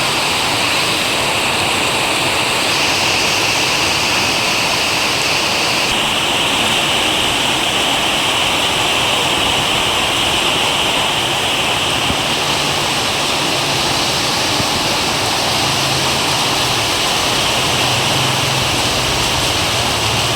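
Heavy tropical downpour: rain pouring steadily in a dense, even hiss. A faint low hum joins in the second half.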